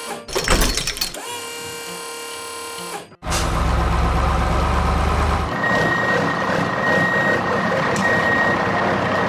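Background music for about three seconds, then a heavy truck engine sound effect running, deep at first, with a steady high tone joining about halfway through.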